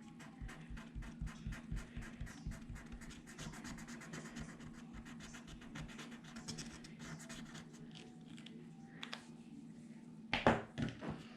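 Rapid scratchy strokes of a marker coloring in a paper die-cut, many strokes a second, fading out after about seven seconds. A few louder handling knocks on the table follow near the end.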